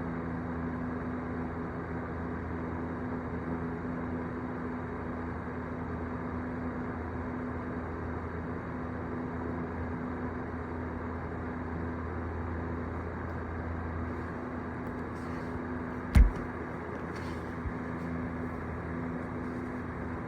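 Steady low mechanical hum with several constant tones, broken by one brief loud thump about sixteen seconds in and a faint click shortly after.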